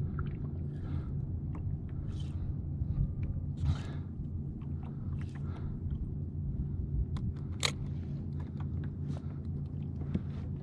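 Sounds of a fishing kayak on the water: a steady low rumble, with scattered small clicks, knocks and brief splashy rustles from handling on board, one sharper click about two-thirds of the way through.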